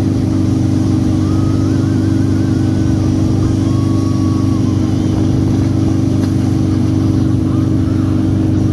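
Motorboat engine running at a steady speed, a constant low drone with faint wavering whine-like tones above it.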